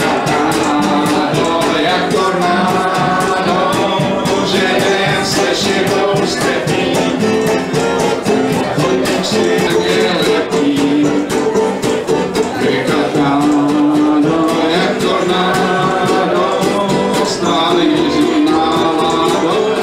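Live jazz: a man singing over an archtop guitar strummed in a steady, chopping rhythm.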